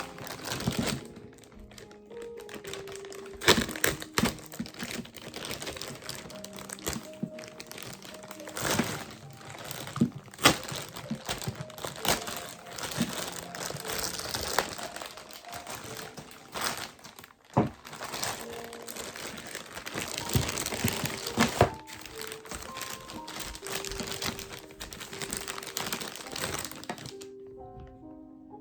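Packaging being unwrapped and handled: crinkling and rustling with sharp clicks and knocks, stopping about a second before the end, over soft background music.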